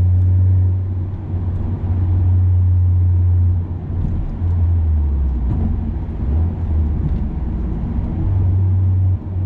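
Opel Corsa OPC's 207 hp turbocharged 1.6-litre four-cylinder with a reworked exhaust, heard from inside the cabin while driving: a steady low drone that falls away about three and a half seconds in, wavers for a few seconds, and comes back strongly near the end.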